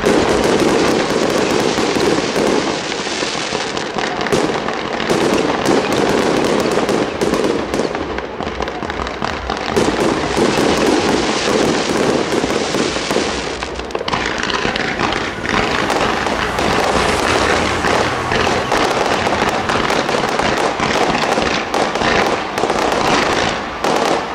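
An Itria Fireworks aerial display firing a continuous barrage: many shells and comets popping and crackling without a break. About halfway through, the barrage turns higher and sharper.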